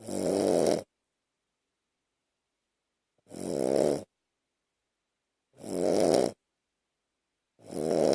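A small Shih Tzu mix dog snoring in its sleep: four buzzy snores, two to three seconds apart, each swelling over less than a second and then stopping.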